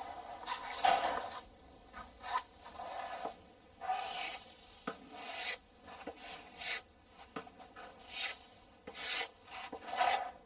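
Putty knife scraping as it spreads joint compound over a mesh patch on drywall, in a series of short strokes about one a second.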